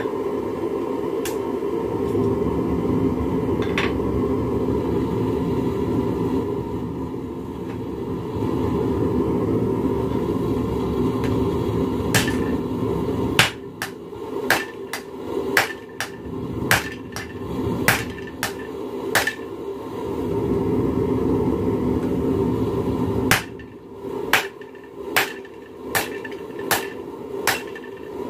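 Hand hammer striking a red-hot railroad spike held in tongs on an anvil, forging a knife blade: a quick run of sharp ringing blows, then after a pause a slower series of about six blows spaced under a second apart. Before the hammering, and again in the pause, a steady low rushing noise.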